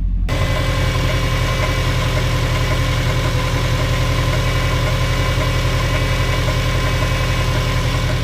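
A 2004 Subaru Forester XT's turbocharged flat-four idling steadily with an even, rapid pulse, while still cold from a cold start. The cold-start knock in this engine is a misgapped timing-belt guide rubbing against the belt while the engine is cold. About a third of a second in, the sound turns suddenly fuller and brighter.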